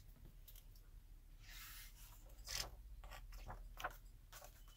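Faint rustle of a picture book's paper pages being handled and turned, with a short swish about a second and a half in and a few light taps after it.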